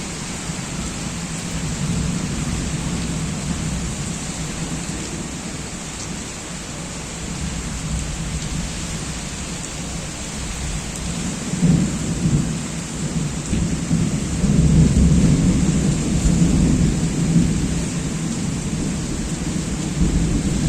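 Thunderstorm: steady heavy rain with low rumbling thunder, which swells suddenly a little past halfway and stays loudest toward the end.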